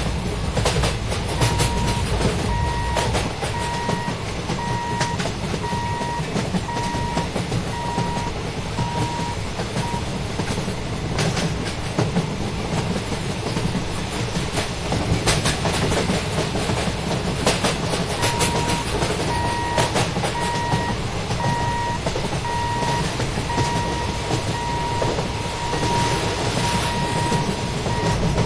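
Malda Intercity Express train passing a level crossing: a steady rumble of wheels on rail with clacking over the rail joints. A row of short, evenly spaced electronic beeps at one high pitch sounds through the first third and again from about two thirds of the way in.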